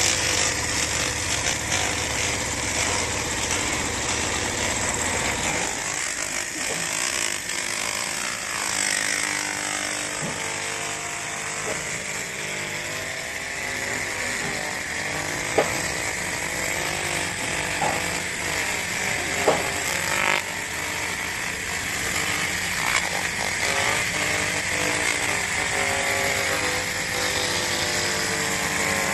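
Laser cleaning machine working, a steady harsh buzzing hiss with a few sharp clicks in the middle; a low hum underneath drops away about six seconds in.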